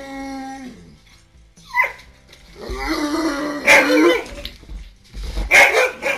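Siberian husky and Alaskan malamute vocalizing. A held howl falls off in pitch about a second in, then comes a short yip, then a longer wavering woo, and rough barks near the end.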